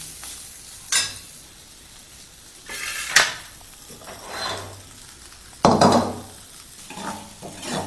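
Steel ladle scraping and knocking against a black kadai as sautéed greens, onions and chillies are stirred, in repeated strokes with the loudest about six seconds in, over a light sizzle from the hot pan.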